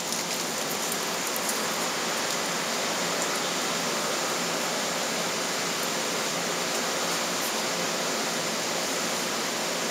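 A steady, even hiss that holds a constant level, with no distinct knocks or clicks.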